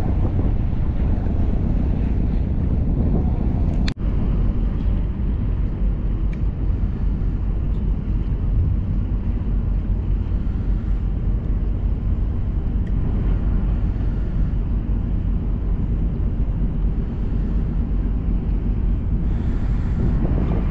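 Steady drone of the boat's 12 hp Hangkai outboard motor running under way, mixed with wind rushing on the microphone. The sound breaks off for an instant about four seconds in, then carries on.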